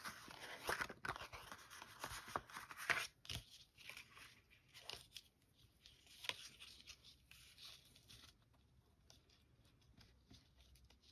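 Faint rustling and light scraping of a paper card and linen thread being handled while the thread is tied into a bow around the card. Several brief crisp rustles come in the first few seconds, then the handling grows quieter, almost dying away near the end.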